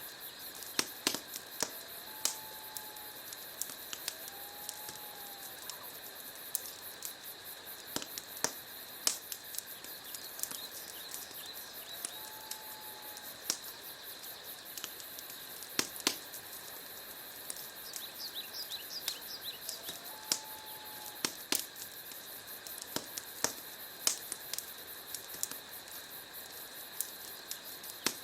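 Burning wood fire crackling: sharp, irregular pops and snaps of varying loudness over a steady hiss. A short, faint whistling tone recurs every few seconds.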